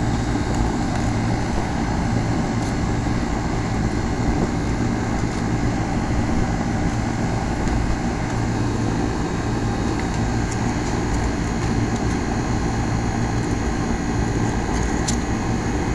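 A Lennox Merit Series 1.5-ton heat pump's outdoor unit running in cooling mode: a steady compressor hum under the even whoosh of the condenser fan. A couple of faint clicks sound over it.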